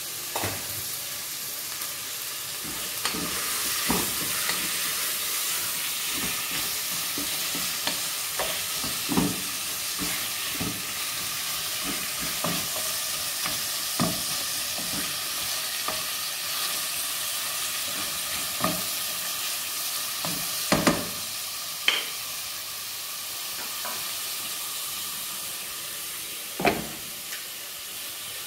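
Chicken carcass, onion and garlic frying in olive oil in a metal pot, sizzling steadily, while a wooden spoon stirs them and knocks against the pot now and then.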